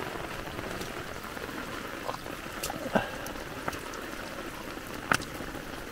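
Muddy storm runoff flowing fast past a pile of stones in a farm channel, a steady rush of water, with a few sharp knocks.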